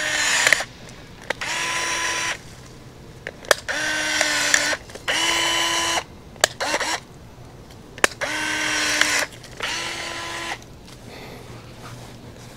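A small cordless power tool cutting limbs while pruning a tree. It runs in about seven short bursts of about a second each, each spinning up briefly at the start, with a few sharp clicks between bursts.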